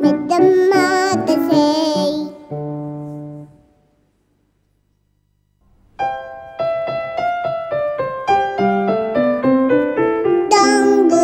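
A young girl singing a children's song with grand piano accompaniment ends about two seconds in, and a final piano chord dies away into a short silence. Then a C. Bechstein grand piano plays a bright introduction to a new children's song, and the girl's singing comes back in near the end.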